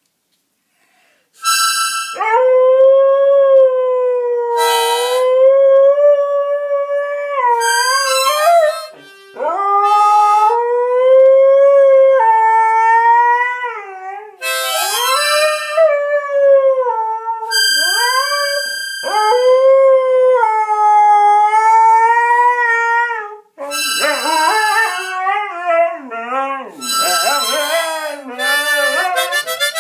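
Siberian huskies howling along to a harmonica: long, wavering howls that rise and fall in pitch, with short harmonica chords between and under them. It starts about a second and a half in, and near the end two howling voices overlap.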